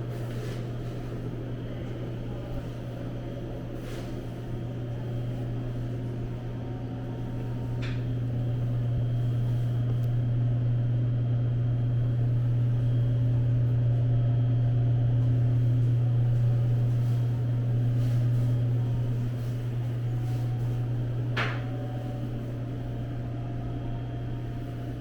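Steady low machine hum, swelling louder in the middle, with a few faint clicks.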